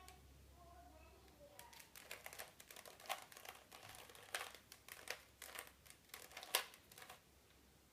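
Plastic Rubik's cube being turned by hand, its layers clicking in a quick irregular run that starts about a second and a half in and stops shortly before the end.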